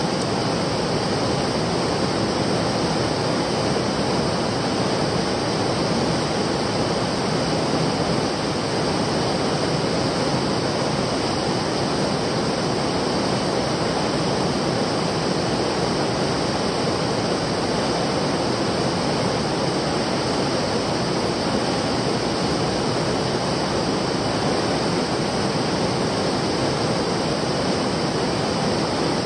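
Steady rush of flowing stream water, an even, unbroken noise.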